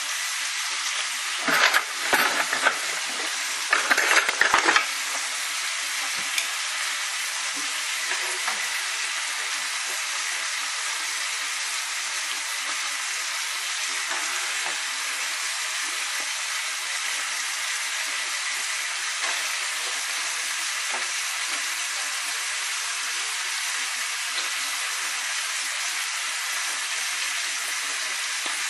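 Food sizzling steadily in a hot frying pan. In the first few seconds a cooking utensil clatters against the pans in two short bouts of knocking and scraping.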